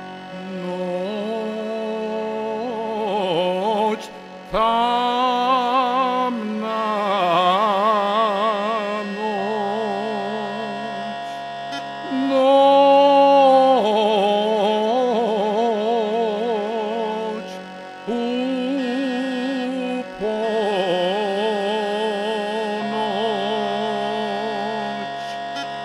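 Slow traditional Serbian song: a drawn-out melody with wide vibrato and sliding notes over held accompaniment chords, in phrases separated by short pauses.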